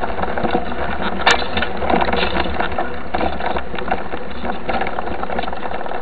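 Mountain bike being pushed over rough trackside ground, heard through a camera mounted on the bike: steady rattling and irregular clicking, with one sharper click about a second in.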